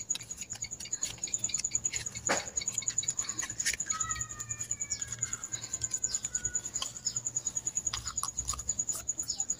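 Fresh banana leaf being rolled and folded by hand into a cone: crisp rustling with scattered small crackles and clicks as the leaf is handled.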